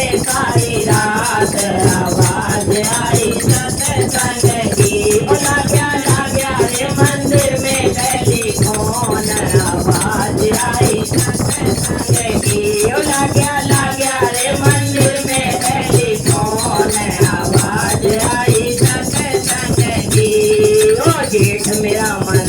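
Women's group singing a devotional bhajan over a steady drum beat and shaken, jingling rattle percussion.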